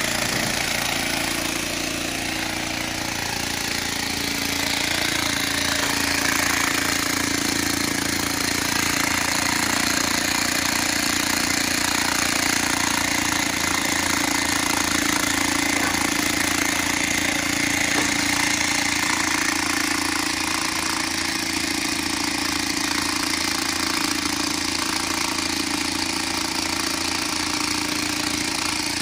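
Electric demolition hammer driving a copper earth rod into the ground: fast, continuous hammering that runs without a pause.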